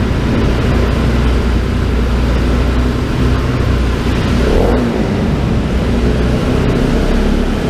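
Motorcycle engine running steadily as the bike rolls at low speed, a continuous low drone under road noise.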